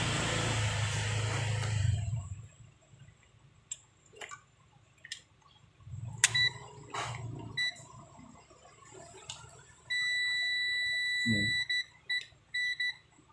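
Tester's continuity beeper giving a few short beeps, then a steady beep for nearly two seconds, then more short beeps, with light clicks between. This is the sign of the probes finding a closed circuit during a wiring check. In the first two seconds a steady rushing noise with a low hum runs and then stops.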